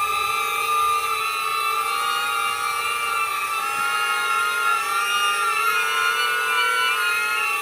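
DJI Neo mini drone in flight, its propellers giving a steady high-pitched whine made of several tones that waver up and down as the motors adjust speed.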